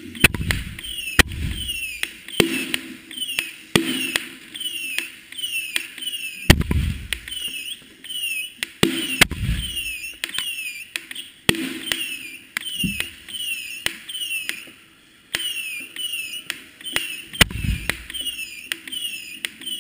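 A 60-shot consumer fireworks cake firing its tubes one after another, heard from right among the tubes. About a dozen sharp launch reports come a second or two apart, and several are followed by a low rumbling boom.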